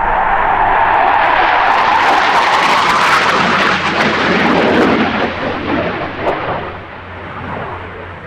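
Jet noise from a Leonardo T-346A jet trainer's twin Honeywell F124 turbofans as it passes close in a display turn. The noise is loud and at its harshest, with a ragged crackle, a few seconds in, then fades away over the last three seconds as the jet flies off.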